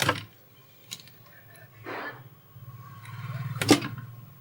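Close handling sounds of old speaker wire being stripped: several sharp clicks and scraping, rustling noises as the heat-softened, hardened insulation is worked off the wire, with the loudest click near the end.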